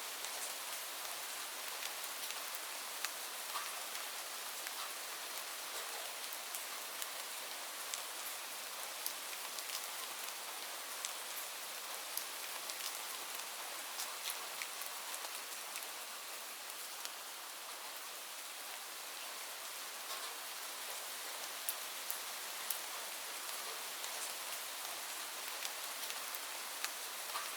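Steady rain falling, an even hiss with many scattered individual drops ticking on surfaces.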